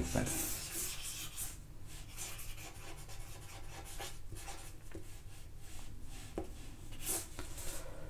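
Marker pen writing on paper: a run of short, irregular scratching strokes as words are written and a box is drawn around them.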